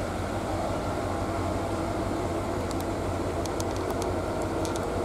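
Steady low drone of an idling diesel locomotive engine, even in level throughout. Faint sharp clicks start about halfway through.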